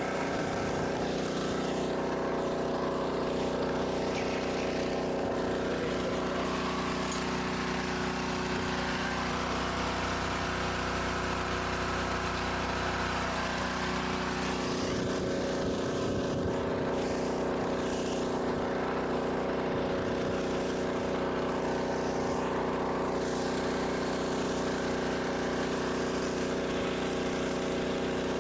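An engine running steadily at a constant speed, giving an even hum.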